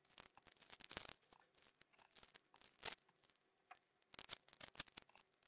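Blue protective plastic film being peeled off a stainless steel watch bracelet: faint crackling and rustling in short bursts, loudest about three seconds in and again just after four seconds.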